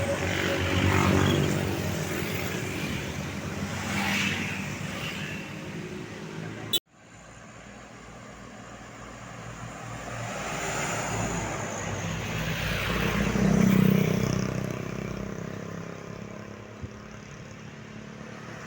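Tour bus engines running as buses drive past. The sound breaks off sharply about seven seconds in, then another bus approaches and passes, loudest about fourteen seconds in.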